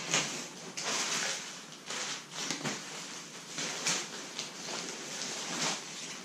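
Marmot Tungsten 2-person tent's fabric and stuff sack rustling and crinkling in irregular bursts as the packed tent is handled and pulled out of its bag.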